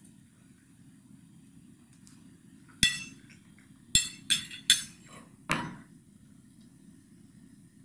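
Metal knife and fork clinking against a ceramic dinner plate as they are set down: about five sharp clinks between three and six seconds in.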